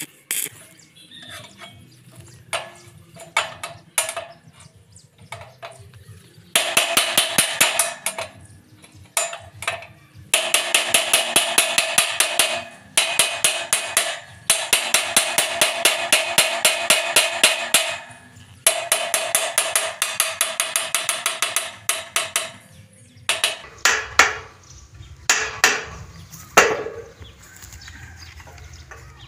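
Stick (arc) welding with 2.5 mm electrodes: the arc crackles in four runs of a few seconds each, with short breaks between. Scattered clicks and taps come before the first run and after the last.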